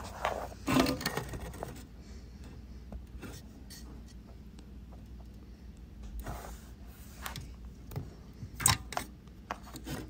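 Plastic wire-harness connectors being worked loose from a GE dishwasher control board: scattered clicks and the rubbing of plastic housing and wires, with a sharper click near the end.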